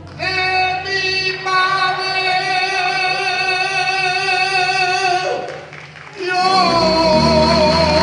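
A singer holding two long sustained notes with vibrato in a Peruvian criollo song, the first breaking off about five seconds in before the second begins.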